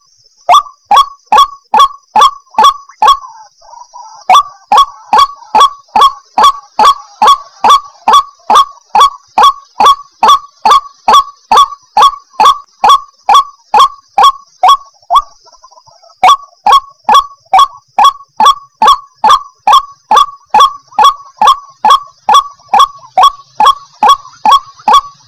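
White-breasted waterhen giving its repeated harsh 'ruak-ruak' call, about two to three loud notes a second. The string breaks briefly near the start and again for about a second past the middle.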